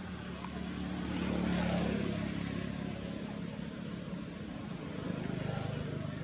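A motor vehicle engine running steadily, swelling louder about one and a half seconds in and again near the end.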